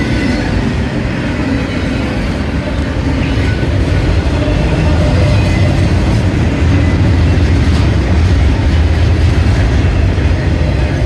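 Double-stack intermodal well cars of a freight train rolling past: a loud, steady rumble of steel wheels on rail, heaviest in the low end, growing a little louder about halfway through.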